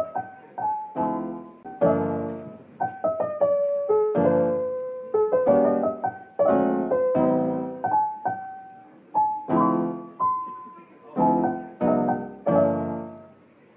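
Background piano music: chords struck over and over, each fading away, with single higher melody notes between them.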